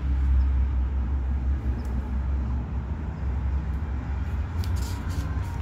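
Steady low outdoor background rumble, with a few light rustles of paper about five seconds in as a hand moves across the receipt sheets.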